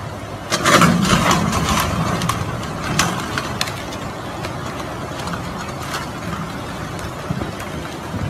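Swollen floodwater rushing in a steady roar. About half a second in, loud cracking and crashing lasts a couple of seconds as a bridge section breaks apart and is carried off by the current, with a few sharp knocks after.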